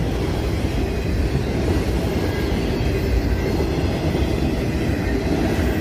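Freight train of enclosed autorack cars rolling past on the rails, a steady noise of wheels on track as the last cars go by.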